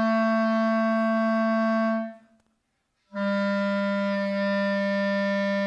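Clarinet playing two long, steady held notes in its low register: the first stops about two seconds in, and after a short silence a second, slightly lower note begins and is held.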